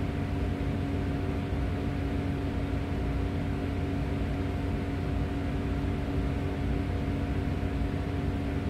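Steady machinery hum: a low rumble with a couple of constant humming tones over a even hiss, unchanging throughout.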